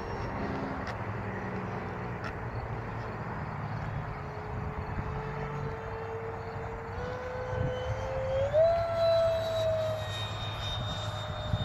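Radio-controlled Saab Viggen model jet's ducted fan whining as it flies overhead, the pitch creeping up and then rising sharply as it throttles up about eight seconds in, where it is loudest.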